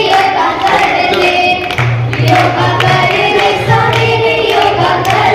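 A group of girls singing a Hindi song together in unison, clapping their hands along. About two seconds in, a low steady note joins under the singing.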